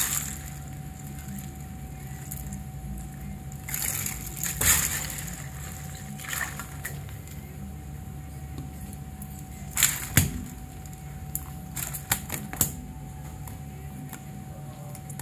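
Scattered wet slaps, knocks and splashes as a kijihata (Hong Kong grouper) is handled on a work board and in a tray of iced water while it is killed and bled, the loudest about four and a half and ten seconds in, over a steady hum.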